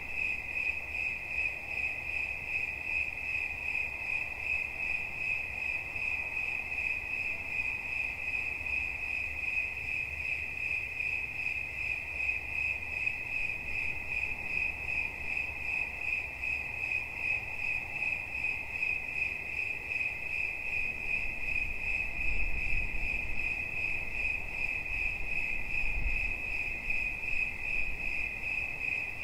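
Cricket singing: a steady, high-pitched, rapidly pulsing chirp that never pauses. Brief low rumbles come in about two-thirds of the way through and again near the end.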